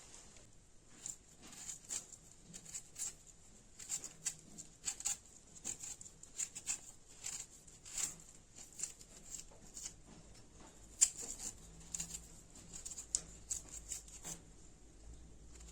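Irregular short scraping strokes, about one to two a second, with one sharper, louder click about eleven seconds in.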